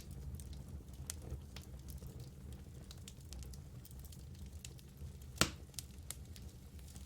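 Wood fire burning in a fireplace: a low steady rumble with scattered sharp crackles and one loud pop about five and a half seconds in.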